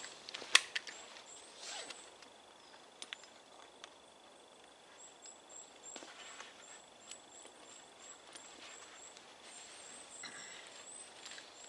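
Handling of a canvas rucksack as it is opened and searched: a sharp click about half a second in, a few light knocks, and soft rustling of fabric and gear. A small bird's thin, very high call repeats faintly in the background.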